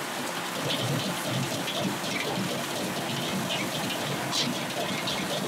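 Egg sizzling in a hot wok over a gas flame, with a steel ladle scraping and knocking against the wok in short, irregular strokes as it is stirred.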